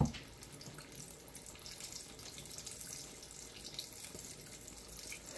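Hot cooking oil sizzling steadily with fine crackling as pastelitos fry in it. A brief knock right at the start.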